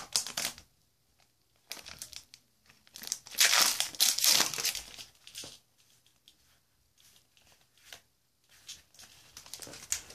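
Pokémon trading card booster pack wrapper crinkling and tearing as it is pulled open, in irregular bursts with the loudest stretch in the middle.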